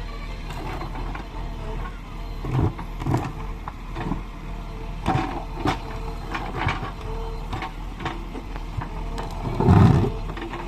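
JCB 3DX backhoe loader's engine running steadily while the backhoe digs, with irregular clunks and knocks from the working arm and bucket, and a heavier thump near the end.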